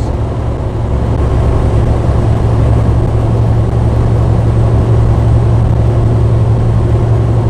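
Truck cab interior noise while driving: the diesel engine's steady low drone under a broad, even hiss of road and wind noise.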